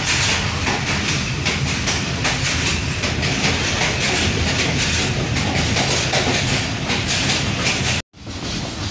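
Passenger train coach running at speed, heard from inside: a steady rumble and rattle of the carriage with frequent clicks and knocks from the wheels and running gear. The sound cuts out abruptly about eight seconds in and comes back quieter.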